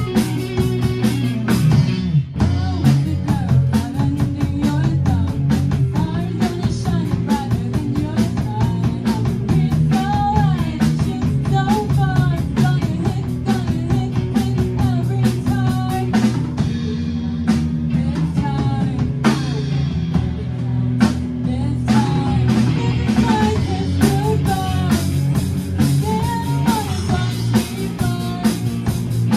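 A rock band playing: a girl singing lead over electric guitars and a drum kit keeping a steady beat.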